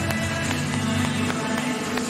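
Background music with sustained low bass notes and a light beat.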